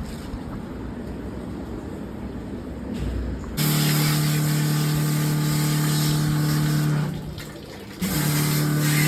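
Electric jet-wash pump kicks in about a third of the way through, running with a steady hum under the hiss of water spray. It cuts out for about a second, as when the spray gun is released, then starts again.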